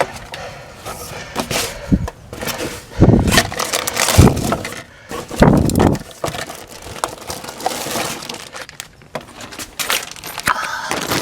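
Irregular handling noise: knocks, clatters and rustling, with a few heavy thuds about three to six seconds in, as a camera is jostled and rubbed while being carried.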